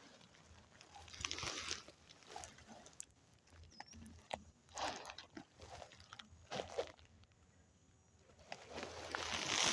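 Footsteps crunching and rustling through dry leaves and undergrowth, in irregular bursts with a few sharp snaps, growing louder near the end.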